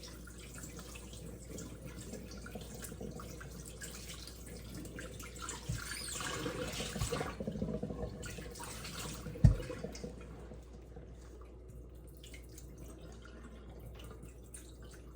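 Water dripping and splashing in a kitchen sink as soaked berries are drained, with scattered small drips and a single dull thump about nine and a half seconds in.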